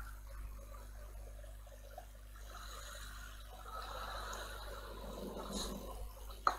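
Low steady hum under faint noise that swells in the middle, with one sharp click near the end.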